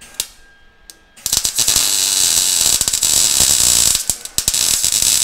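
MIG (wire-feed) welder laying a weld: a steady crackling hiss that starts about a second in, after a couple of faint clicks.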